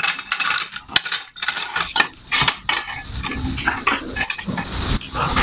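Metal clinks and rattles of a portable satellite dish tripod being handled and adjusted, its legs and centre pole knocking as they are set in position: a run of sharp clicks and knocks.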